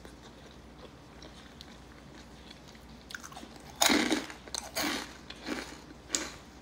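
A person chewing a mouthful of food close to the microphone, with a run of short crunching bites starting about four seconds in, the first the loudest.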